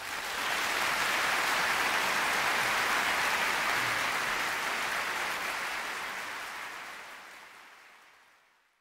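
Audience applause that swells in at the start, holds steady, then fades out over the last few seconds.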